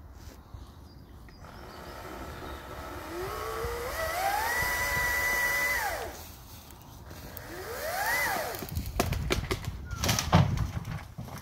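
Chainsaw revving up: a whine that climbs over a few seconds to a high held pitch, then falls away, followed by a shorter rev that rises and drops. Then a run of sharp cracks and knocks, the loudest about ten seconds in.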